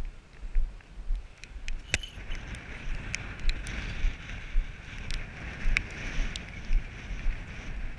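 Footsteps of a person walking over rough hillside grass, a low thud about twice a second, with wind buffeting the microphone and a steady hiss.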